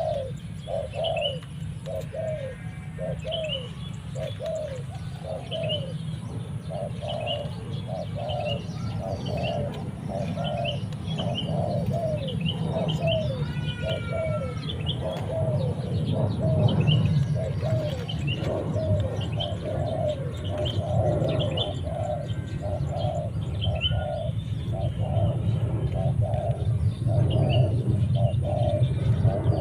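Spotted dove cooing repeatedly in a steady series of short low notes, with small birds chirping higher up and a steady low rumble underneath.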